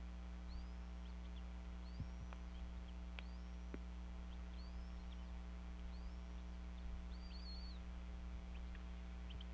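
A bird calling over and over, a short high note that rises and levels off, about once a second, with a longer wavering call near 7 s. A steady low electrical hum lies under it all.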